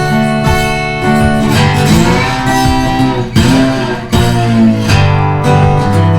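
Background music: an acoustic guitar strumming and picking, with a steady bass line.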